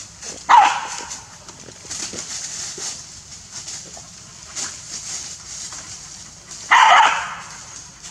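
A dog barks twice: a short sharp bark about half a second in and another, slightly longer one about seven seconds in, with light rustling and clicks between.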